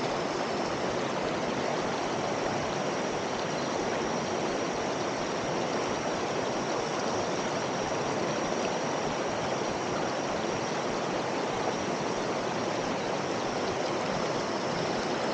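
Waterfall and its stream rushing: a steady, even hiss of falling water that does not change, with a faint thin high tone above it.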